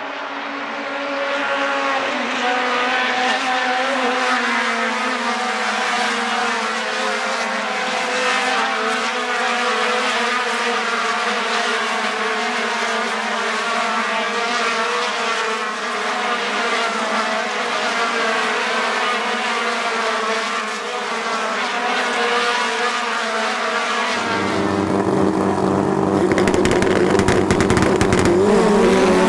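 Racing car engines running hard at high revs, the pitch holding fairly steady and wavering slightly. About 24 seconds in the sound cuts abruptly to a deeper, fuller engine note, and near the end the revs rise and fall.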